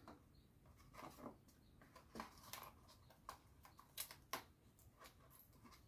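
Faint, scattered rustles and light taps of cardstock being handled, about half a dozen short sounds over a few seconds against a quiet room.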